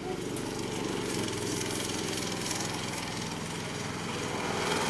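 Go-kart's small engine running steadily as the kart drives round the track, getting somewhat louder toward the end.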